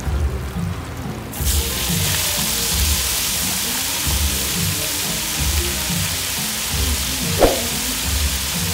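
Battered chicken pakodi deep-frying in hot oil in an iron kadai: a loud, steady sizzle sets in about a second and a half in as the oil foams up around the skimmer. One knock near the end, with background music and a beat underneath.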